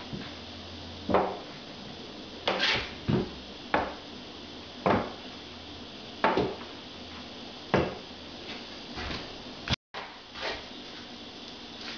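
A wooden board knocked against freshly glued wall tiles, a sharp knock roughly every second, tapping the tiles flat and lining them up in the adhesive.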